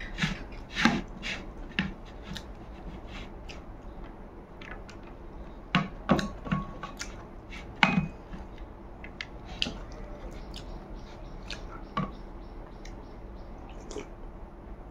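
A person eating rice by hand close to the microphone: irregular chewing and lip-smacking clicks, with fingers working the food on a plate. The clicks cluster about a second in and again around six and eight seconds.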